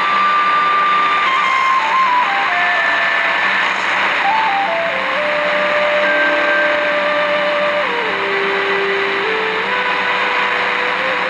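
Music from a shortwave broadcast coming through a Degen portable receiver's speaker: a slow melody of single held tones stepping up and down in pitch, over steady static hiss.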